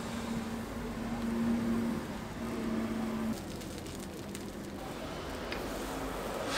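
Steady rushing background noise with a low hum at a street-side egg bread griddle stall. The hum stops about halfway through, and a couple of light clicks near the end match a metal spatula touching the griddle.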